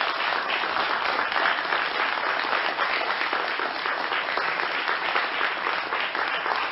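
Lecture audience applauding steadily.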